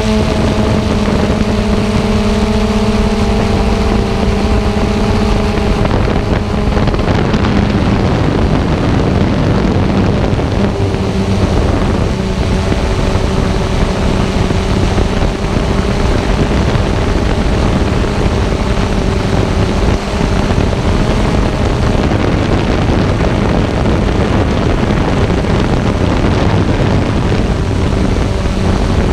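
Xiro Xplorer G quadcopter's electric motors and propellers humming steadily in flight, picked up by its onboard camera. For the first few seconds the hum is a clear steady pitch; after that a rushing of wind on the microphone mostly covers it.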